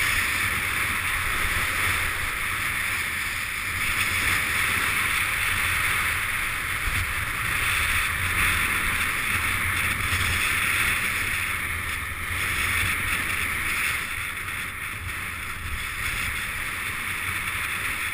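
Steady rush of skis running over packed, groomed snow at speed, with wind buffeting the camera's microphone.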